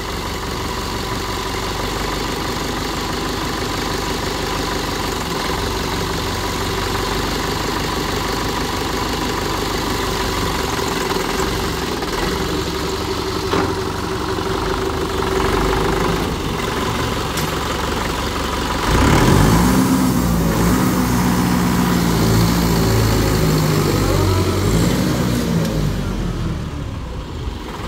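Mahindra Bhoomiputra tractor's diesel engine running steadily while the freshly serviced clutch is tried through the gears. About 19 seconds in it gets louder, its pitch rising and falling as the engine is revved and loaded.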